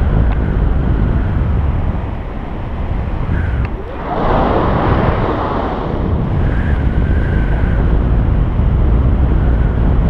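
Airflow from a tandem paraglider flight buffeting the camera's microphone: a steady low rumble, with a louder rushing gust about four seconds in.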